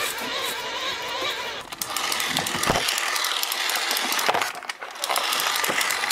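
Hand-powered film rig running: a spring-wound 16 mm camera's clockwork and a hand-cranked dynamo flashlight. First a wavering whine, then from about two seconds in a dense mechanical rattle of rapid clicks that briefly drops away near the end.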